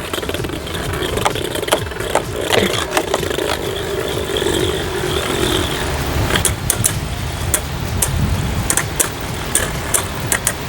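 Two Beyblade Burst spinning tops, Vise Leopard and Deep Chaos, whirring and clashing in a plastic stadium: a steady spinning hum with many sharp clicks as they collide, the clicks coming more often in the second half. The battle goes on without a burst and is decided on stamina.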